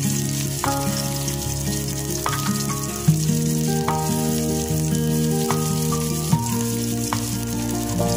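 Chilli flakes, green chilli and turmeric frying in hot oil in a metal pan, a steady sizzle. Under it runs a slow instrumental tune of held notes that change pitch every second or so.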